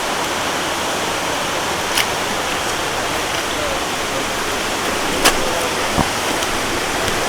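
Steady rush of a waterfall pouring into a rainforest pool, with a few sharp clicks about two, five and six seconds in.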